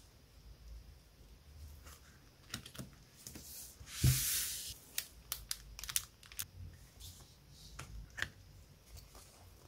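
A stack of illustrated paper sheets being handled and leafed through. There is a loud paper swish about four seconds in, followed by a quick run of light clicks and flicks from the sheet edges.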